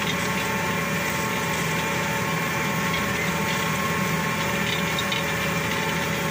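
New Holland T7 tractor's diesel engine running steadily under load while pulling a plough, heard from the cab as an even drone with a faint steady whine over it.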